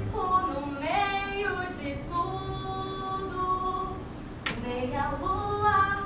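A voice singing a melody in long held notes that slide between pitches, with a sharp click about four and a half seconds in.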